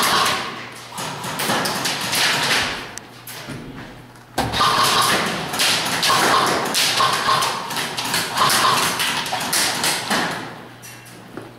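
Airsoft guns firing in rapid bursts, with BBs tapping and smacking on wooden barricades, echoing in a large hall. The shooting eases off for a moment, then breaks out densely again about four seconds in and dies down near the end.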